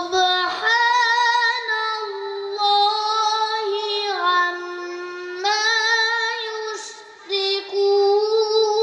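A boy's voice chanting long, held melodic phrases into a microphone, unaccompanied, the pitch wavering and stepping between notes, with a short pause for breath about seven seconds in.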